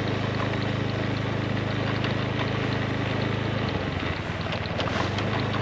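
Honda Scoopy i scooter's small engine running steadily while riding, heard through a camera mounted on the scooter, with wind and road noise. The engine note softens slightly near the end.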